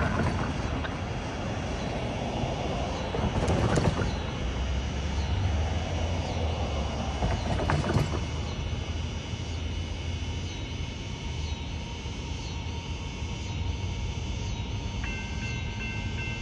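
CSX freight train running past at speed: a steady rumble with regular clacks of wheels over rail joints, a little more than one a second. Two louder knocks come in the first half. A faint high steady ringing joins near the end.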